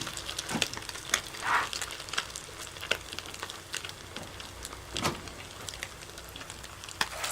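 Salmon patty frying in hot grease: a low steady sizzle with scattered crackles and pops of spattering oil, swelling into a much louder sizzle right at the end.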